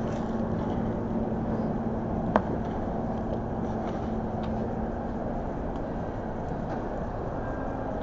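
Steady background rumble of a mall food court, with a low hum through the first five seconds and one sharp knock about two and a half seconds in.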